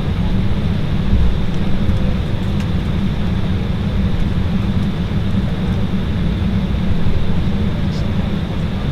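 Cabin noise of an Embraer E190 with its GE CF34-10E turbofan engines running, heard from a window seat: a steady low-pitched noise with a faint high whine above it.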